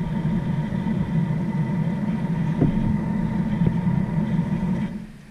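Steady low rumble of an idling engine, dropping away sharply near the end.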